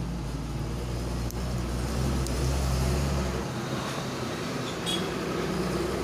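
Road traffic noise with a motor vehicle's engine running, its low hum dropping away about three and a half seconds in.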